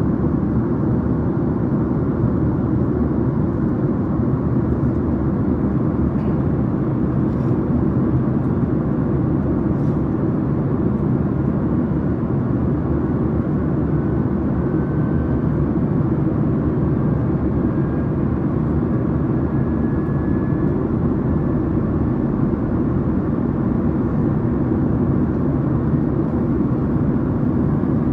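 Airplane noise: a steady, even low drone that neither rises nor falls.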